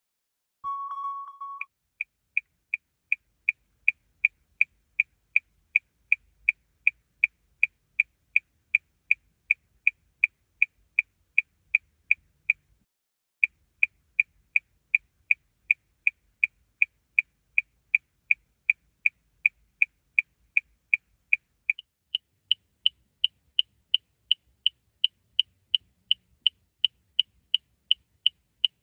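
Car turn-signal blinker clicking in an even rhythm, about three clicks a second, with a brief pause near the middle. About two-thirds of the way through it changes to a higher, sharper click, a different blinker sound. A short steady beep comes just before the clicking starts.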